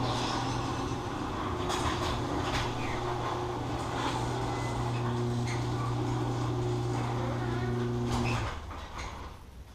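A motor running with a steady low hum, with knocks and clatter over it; the hum cuts off about eight and a half seconds in.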